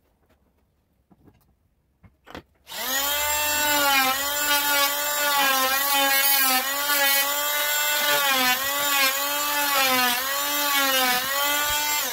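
Wesco oscillating multi-tool started about three seconds in after a short click, its blade cutting into a wooden carving: a steady high buzz with many overtones that dips in pitch about once a second as the blade bites into the wood. Its pitch begins to fall at the very end.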